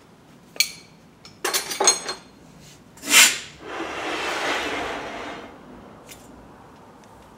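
Metal clinks and knocks as the lathe's carriage and tooling are handled and moved into position, with a brief scraping rush about three seconds in that fades over the next two seconds.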